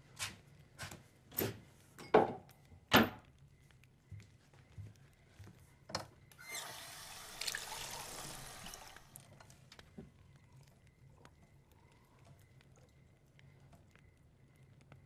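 Kitchen sounds from a film: several sharp knocks in the first three seconds, then water running for about two and a half seconds, then faint room tone.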